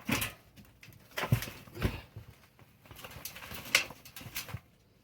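Bursts of rustling with a couple of dull thumps, from carrots being pulled out of a bucket of soil by their tops.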